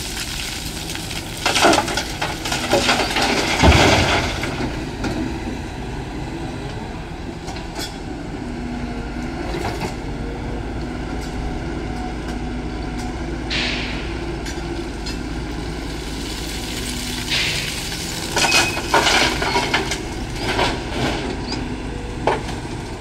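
Sany crawler excavator's diesel engine running steadily under load, with cracking and snapping of branches as the bucket tears through brush in the first few seconds. Near the end, a cluster of knocks and rattles as the bucket dumps soil into a tipper truck's body.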